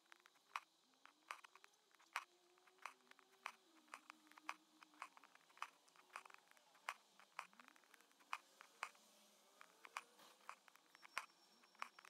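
Hand embroidery needle punching through taut fabric in an embroidery hoop, with thread pulled through behind it: a string of faint, irregular ticks and pops, a couple each second.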